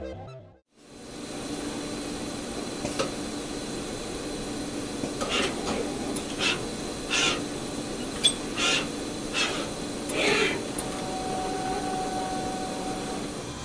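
Electronic background music cuts off at the start. Then the steady hum and hiss of a circuit-board assembly machine line carrying panels along its conveyor, with about seven short bursts of hiss from the machinery in the middle and a brief steady tone near the end.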